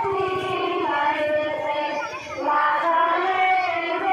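High-pitched singing, a woman's or child's voice holding long drawn-out notes with no instruments, with a brief break about two seconds in.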